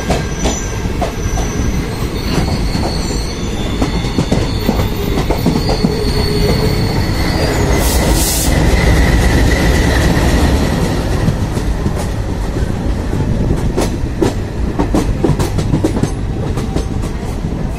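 Passenger train running, heard from on board: steady rumble and clatter of the wheels over rail joints, with repeated clicks. About eight seconds in, a thin squeal from the wheels rises over the rumble for a few seconds, with a short hiss at its start.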